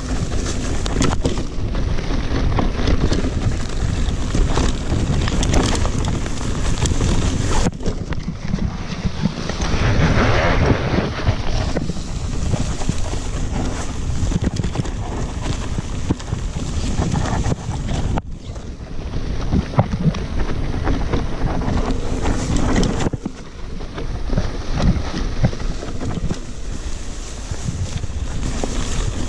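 Wind buffeting the microphone of a rider-mounted action camera on a mountain bike descending through tall grass: a continuous low rumbling rush with a few brief lulls.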